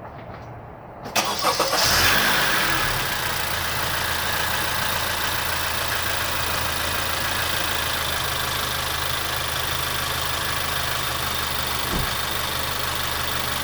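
2016 Honda Accord's 2.4-litre K24 four-cylinder engine cranking briefly on the starter about a second in, catching at once with a short flare of revs, then settling into a steady idle. It is the first start after the alternator replacement, and it starts right up.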